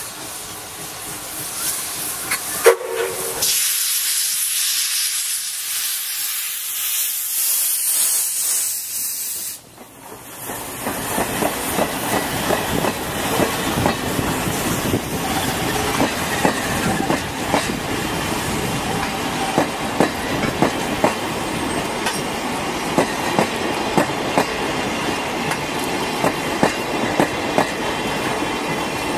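A steam locomotive passing at speed. It gives a loud, high steam hiss for about six seconds that cuts off sharply near ten seconds in. After that its passenger coaches rumble past with a steady clickety-clack of wheels over the rail joints.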